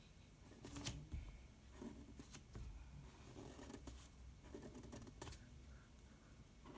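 Faint scratching of a pencil on paper as short detail strokes are drawn, with a few sharp ticks about every second or so.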